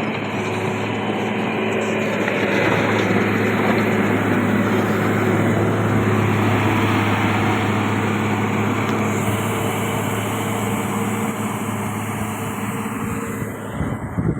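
Motor grader's diesel engine running steadily with a low, even drone, swelling a little over the first few seconds and dropping off near the end.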